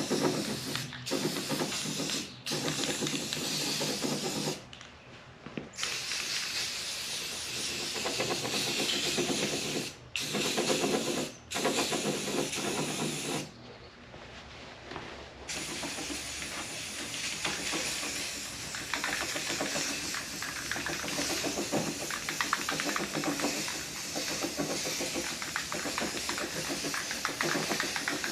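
Aerosol can of rust-preventive paint spraying in long bursts onto bare sheet metal, stopping briefly a few times.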